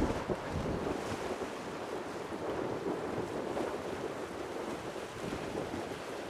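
Steady rushing of wind on the microphone, mixed with the wash of the sea.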